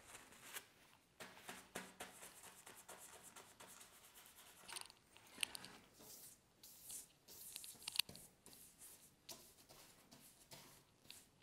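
Faint, scratchy strokes of a wide flat bristle brush dragged across paper on an easel, in quick irregular sweeps, with a couple of sharper clicks, the sharpest about eight seconds in.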